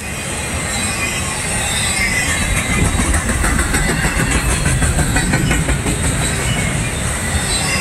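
Double-stack intermodal freight train rolling past at close range: a steady low rumble of the well cars under a high hiss, with a rapid clatter of wheels over the rail joints that is densest through the middle.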